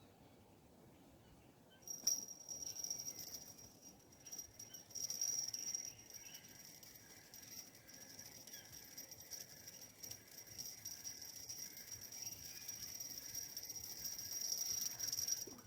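An insect calling with a steady, high-pitched buzz that starts suddenly about two seconds in, swells and fades in loudness, and cuts off just before the end.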